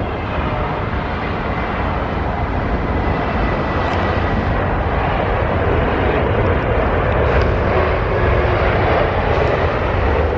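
Jet airliner's engines on a landing approach close by: a loud, steady rushing noise that slowly builds, with a faint thin whine in the first couple of seconds.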